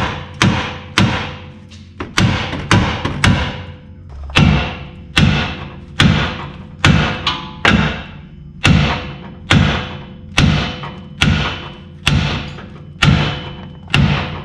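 A steel hammer striking metal on the truck's front suspension, about eighteen ringing blows at a little under one a second, driving a stuck part loose.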